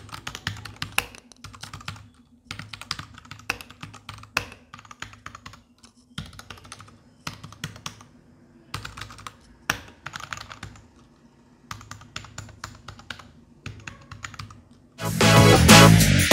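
Typing on a Royal Kludge RK84 mechanical keyboard with brown (tactile) switches: bursts of key clicks with short pauses between them. Loud music comes in near the end.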